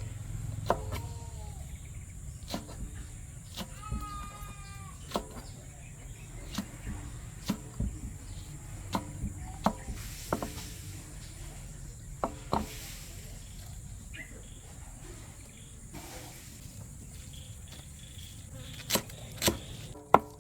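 Steady high-pitched insect buzz, with scattered sharp knocks and clicks and a short pitched call about four seconds in.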